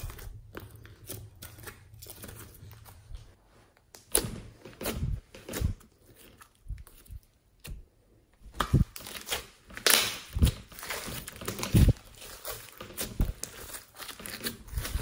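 Hands stretching, poking and squeezing glossy and fluffy slime with small beads mixed in: irregular wet crackles, pops and clicks. The crackling dies down to a quiet stretch a little before the middle, then comes back busier and louder for the rest.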